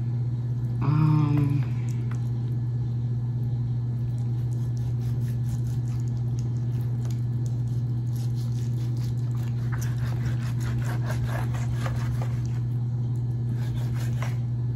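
Knife slicing raw chicken breast on a cutting board: light clicks and taps, thickest in the second half, over a steady low hum. About a second in, a short high pitched cry briefly stands out as the loudest sound.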